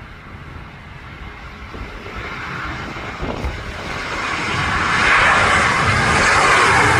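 Airbus A320 jet airliner on final approach with gear down, passing low overhead. Its engine noise grows steadily louder and is at its loudest from about five seconds in.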